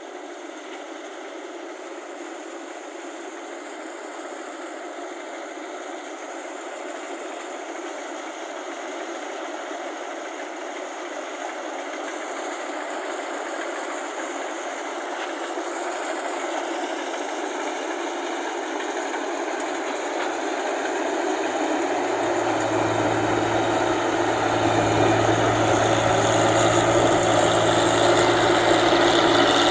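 Rice combine harvester's engine running steadily and growing louder as it comes closer, with a low engine hum coming through about two-thirds of the way in.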